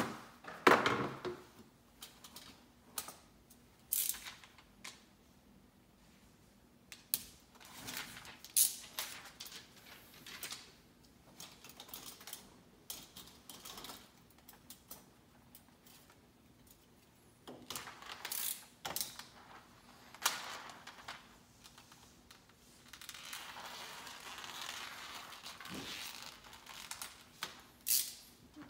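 Window-tinting hand tools handled and worked against the glass and frame: scattered light clicks, taps and knocks, with a louder knock about a second in and a few seconds of rubbing, scraping noise near the end. A faint steady hum sits underneath.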